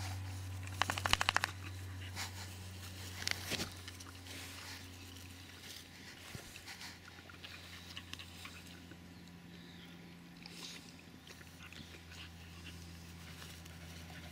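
Staffordshire bull terriers playing and rolling in grass: mouth sounds and rustling, with a quick run of clicks about a second in and another short burst at about three and a half seconds. A steady low hum lies underneath.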